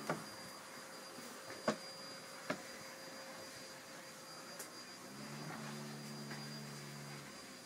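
Steady faint machine hum with a thin high whine, a lower hum joining in after about five seconds, and a few sharp clicks in the first seconds.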